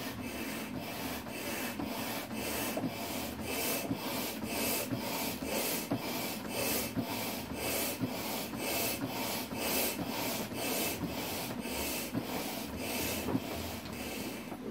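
Hand-operated air pump worked in steady strokes, about two a second, each stroke a short rush of air, inflating a thin vinyl inflatable dragon toy.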